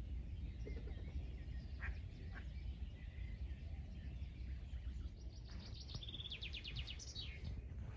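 Songbirds singing, with scattered chirps and then a fast trill of repeated notes starting about five seconds in, over a steady low rumble.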